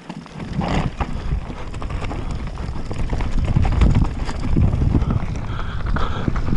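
Mountain bike riding fast down a rocky dirt trail: heavy wind noise on the action camera's microphone mixed with tyre rumble and rattling clicks from the bike over stones, getting louder about half a second in.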